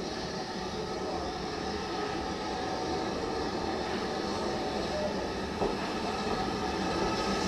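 Steam locomotive drawing a train slowly into the station, its sound growing louder as it approaches, with a single sharp click about five and a half seconds in.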